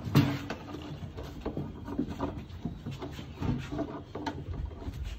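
Red plastic lid of a jar being poked and scraped with a metal tool to make air holes: irregular knocks, clicks and plastic creaking, with the strongest knock just after the start.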